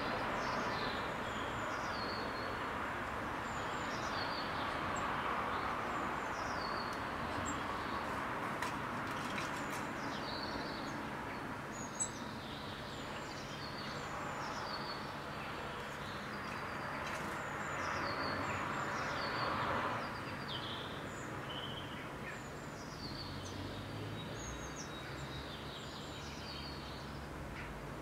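Small songbirds chirping in short, scattered calls over a steady hum of distant city noise, with one sharp click about twelve seconds in.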